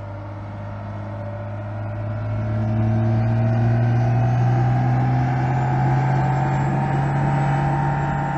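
Diesel engine of a 1998½–2002 Dodge Ram, a 5.9-litre Cummins inline-six with a VP44 injection pump, running under load on a chassis dyno with 100-horsepower injectors during an opacity test. Its note climbs slowly in pitch and grows louder over the first few seconds, then holds steady and eases off slightly near the end.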